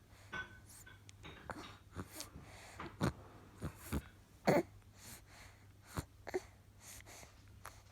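A baby making a quick string of short noises, a dozen or so in a few seconds, the loudest about four and a half seconds in.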